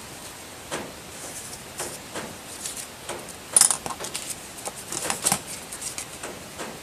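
Small handling sounds of paper crafting: paper rustling and shuffled on a cutting mat, a sharp click about three and a half seconds in, then scissors cutting paper in the last couple of seconds.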